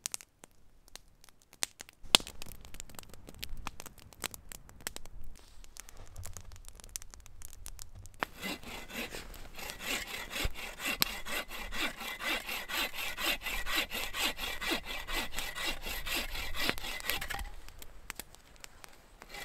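Campfire crackling with scattered sharp pops. About eight seconds in, a hand saw starts rasping through wood in quick, regular strokes, and it stops shortly before the end.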